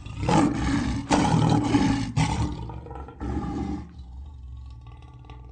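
Lion roaring: a run of loud roars over the first two and a half seconds and another one about three seconds in, after which the sound is much quieter.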